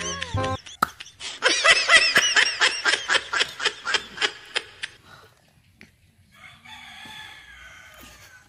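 Chicken calling in a rapid string of short, harsh notes for about three and a half seconds, then fainter calls near the end.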